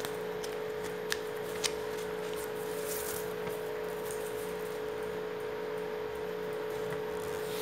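Sheet of paper being folded and creased by hand: a few crisp clicks and rustles over a steady hum.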